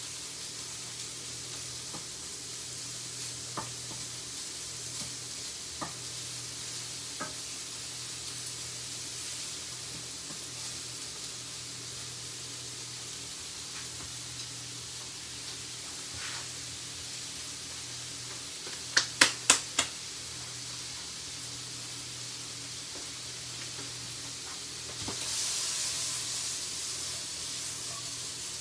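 Strips of sirloin steak sizzling in butter in a frying pan while being stirred with a wooden spatula, with a steady hiss and a few faint ticks. About two-thirds of the way through comes a quick run of four sharp knocks, and near the end the sizzle swells louder for a few seconds.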